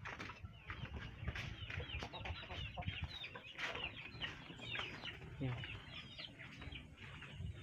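Chickens clucking and calling at a coop: many short calls follow one another all through.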